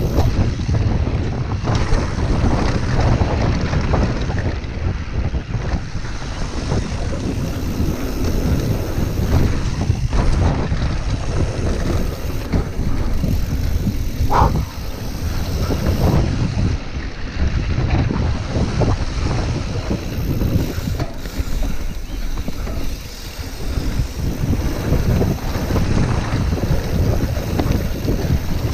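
Wind buffeting an action camera's microphone while a mountain bike runs fast down a dirt trail, with tyre noise and constant rattling of the bike over the bumps. A short squeal sounds about halfway through.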